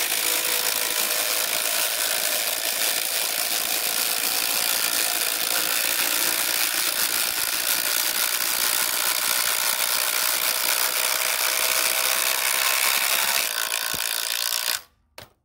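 Two cordless impact drivers, a Kobalt XTR 24V and a Makita 18V, hammering together as they drive 10-inch TimberLOK screws into stacked 6x6 timber: a dense, continuous rattle of impacts. It stops abruptly near the end as the screws are driven home.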